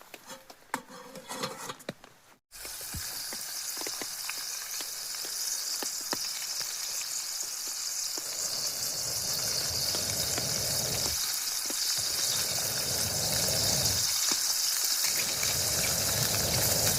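Food sizzling in a frying pan, starting about two and a half seconds in as a steady hiss that slowly grows louder, with low rumbles coming and going in the second half.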